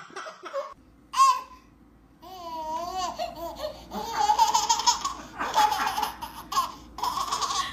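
Baby laughing in repeated bursts, fullest over the last few seconds.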